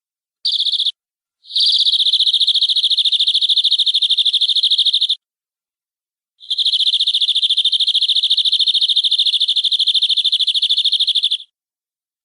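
Domestic canary singing: a short burst, then two long, rapid, even trills held at one high pitch, each lasting about five seconds with a short pause between them.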